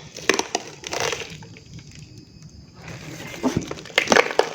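A few sharp knocks and clicks, one about a second in and a cluster near the end, with quieter rustling between: handling noise.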